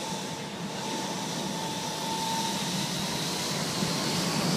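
Jet engines of a JetBlue airliner running at the runway end, a steady whine over a broad rush that grows gradually louder as they spool up toward takeoff power.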